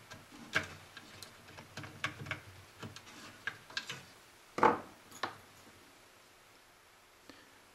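Light clicks, taps and rubbing of hands and red-handled wire cutters working among the wiring and capacitors of a vintage tube-radio chassis, with one sharper knock about four and a half seconds in.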